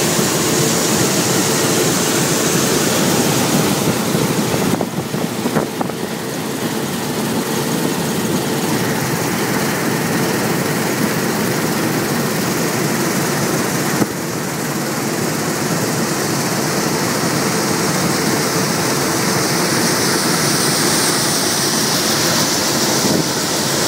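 Claas Lexion 600 combine harvester running steadily: a continuous machine drone with a steady hum under a wash of noise, briefly dipping about five seconds in and again about halfway through.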